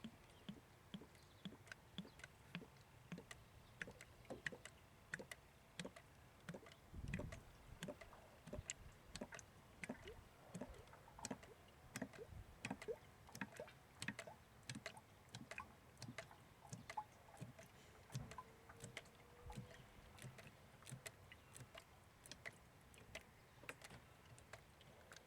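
Motor oil glugging faintly from a jug through a funnel into a car engine's oil filler, as irregular small pops and clicks several times a second, with one low thump about seven seconds in.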